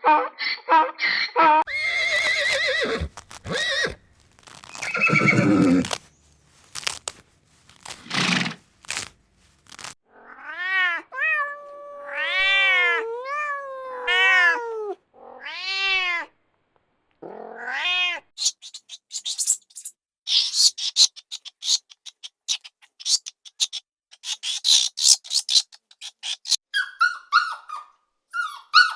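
Domestic cat meowing: a run of five or six drawn-out meows rising and falling in pitch about halfway through, then one shorter rising call. Before the meows come scraping, rustling noises, and after them a long stretch of quick high-pitched chirps and squeaks.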